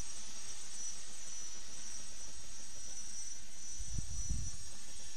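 A steady high-pitched buzz, with wind buffeting the microphone in low rumbling gusts from about four seconds in.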